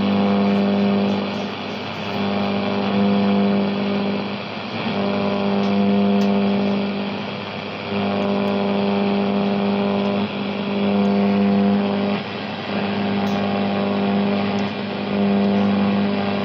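Valve radio's loudspeaker giving a steady low droning tone of one unchanging pitch, which swells and eases in spells of about two seconds.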